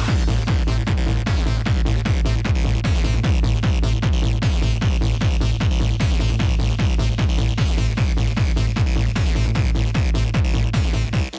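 Electronic dance music from a DJ set: a techno track with a steady four-on-the-floor kick drum, a driving bass line and hi-hats.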